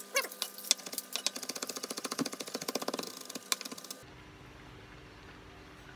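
Chef's knife rapidly chopping red chillies finely on a wooden chopping board, a quick even run of knocks on the board. The chopping stops a little over three seconds in, leaving only a low steady background.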